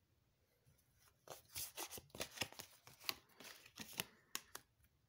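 A deck of oracle cards being shuffled and handled by hand: a quick, irregular run of faint papery flicks and snaps from about a second in, stopping near the end.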